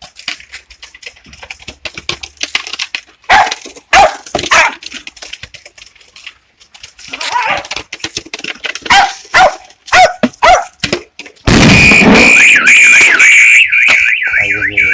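A dog playing with a plastic beer bottle: crinkling, crackling plastic, then a series of short barks and yips. About three-quarters of the way in, a loud warbling electronic alarm starts suddenly and keeps going.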